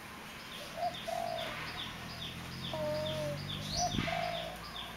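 Birds calling: short cooing calls among a steady run of high falling chirps, about two or three a second. A faint low hum sits under them around the middle.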